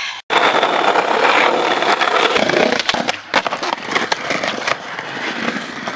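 Skateboard wheels rolling over concrete paving stones: a steady rumble with rapid clicks from the joints between the stones and a few sharper knocks from the board. It begins abruptly just after the start and eases off somewhat in the second half.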